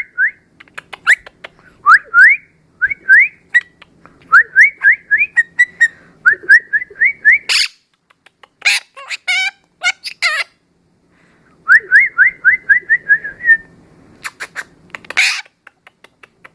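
Pet bird whistling in quick runs of short rising notes, broken by a few harsh squawks.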